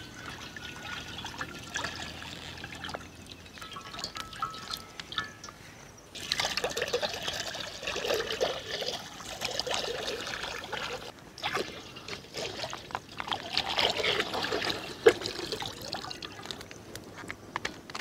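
Cooking oil poured in a thin stream into an empty iron kadai, trickling and splashing onto the metal and pooling in the pan; the pouring grows louder a few seconds in.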